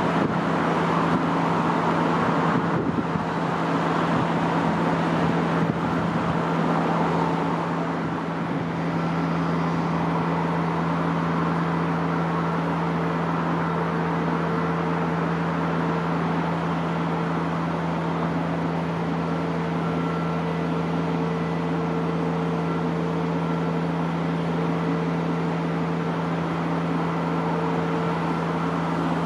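Steady rumble of traffic and railway noise with a constant low hum. It is a little louder for the first eight seconds or so, then evens out.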